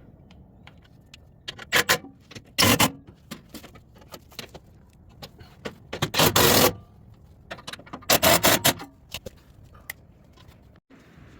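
Cordless impact driver with a 12 mm socket running in four short bursts, tightening bolts, with light metallic clicks and clinks between the bursts.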